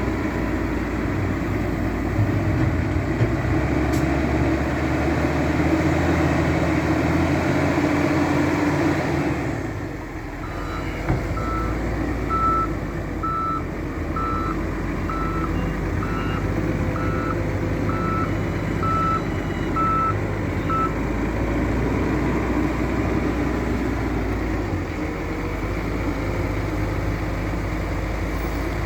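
Heavy diesel construction machinery (wheel loader and dump truck) running hard, easing off about a third of the way in. Then a reversing alarm beeps about once a second for some ten seconds while the engines keep running.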